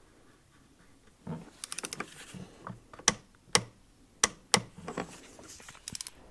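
Ratcheting torque wrench on an extension tightening a plastic oil filter housing cap: short quick ratchet rattles and several single sharp clicks, starting about a second in.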